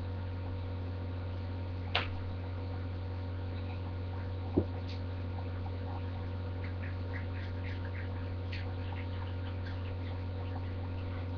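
Steady low electrical hum, with a sharp click about two seconds in, another about four and a half seconds in, and then a run of faint, irregular ticks.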